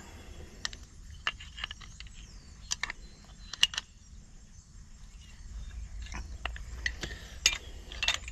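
Hand tools clinking and clicking on the steel hardware of a grain drill's chain idler as an over-tightened bolt is worked loose with makeshift tools: scattered sharp metallic clicks, some in quick pairs, busier near the end.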